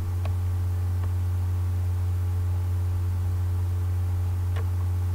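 Steady low electrical hum, like mains hum, over a faint hiss, with two faint clicks: one just after the start and one near the end.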